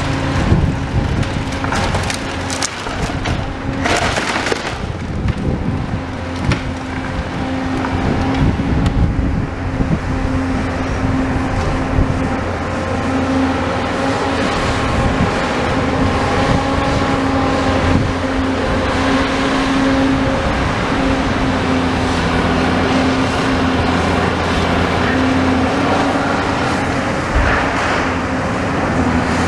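Tracked excavator's diesel engine running steadily while its demolition grab breaks and lifts timber and rubble, with cracks and knocks of splintering wood and falling debris; a loud crash about four seconds in.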